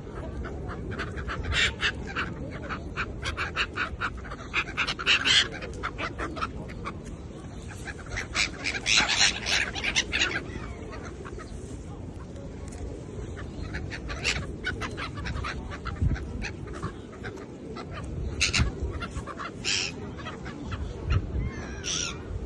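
Birds calling in clusters of rapid short notes, repeated every few seconds, over a steady low background noise.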